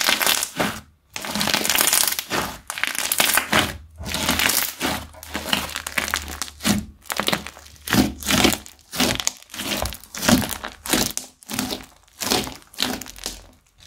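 Blue bead-studded slime being pressed and squished by hand, crackling and popping in short repeated bursts, about one or two a second.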